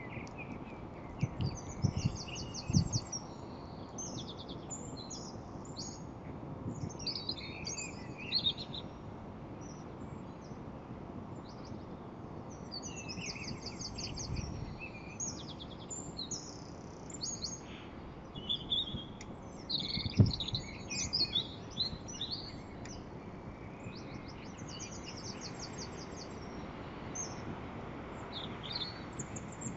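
Small birds chirping and trilling, many quick twittering calls overlapping, over a steady low background rumble, with a few dull low thumps.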